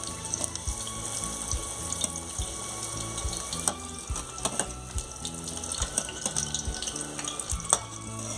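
Green chiles sizzling steadily in very hot oil in a stainless steel pan, with sharp clicks and scrapes of a metal slotted spoon against the pan as the chiles are lifted out.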